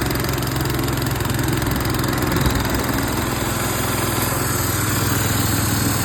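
Gas engine of a Fortress 9-gallon wheelbarrow air compressor running steadily just after start-up, driving the compressor pump.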